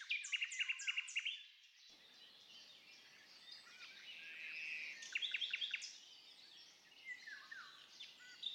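Small songbirds singing and chirping: bouts of quick repeated chirps in the first second and again around five seconds in, with scattered calls between, over a faint steady hiss.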